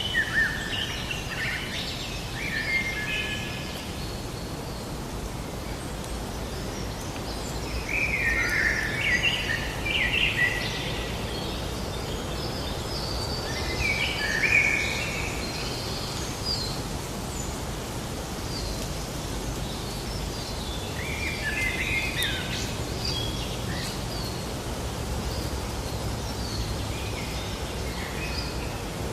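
Songbirds singing in short chirping phrases every few seconds over a steady outdoor background hiss.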